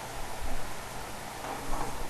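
Steady hiss of water running through the supply line into a gas water heater's tank as it fills, just after the water is turned back on at the main.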